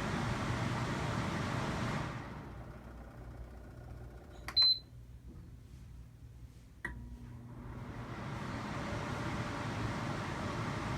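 Honeywell CHS122AE evaporative air cooler: its steady fan and air noise dies away about two seconds in. In the quieter gap a single short, high beep sounds, then a sharp click, and the fan noise builds back up over the last few seconds.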